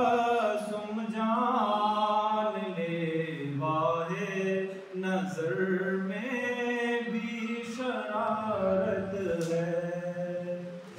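A man singing unaccompanied in a slow, drawn-out melody, holding long vowels and gliding between notes: a shayari couplet sung rather than spoken. The voice pauses briefly about halfway through, then carries on.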